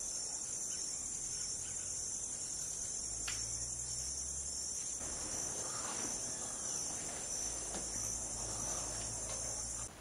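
Steady, high-pitched insect chorus that cuts off suddenly near the end.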